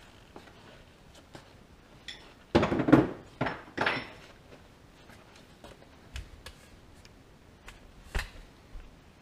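A short clatter of knocks from handling in the workshop: three loud knocks in quick succession near the middle, a few small clicks, and one sharp knock near the end.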